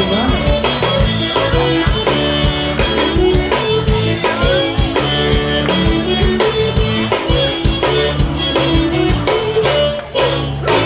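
Live zydeco band playing an upbeat dance tune with guitar and drums keeping a steady beat; the music drops away near the end.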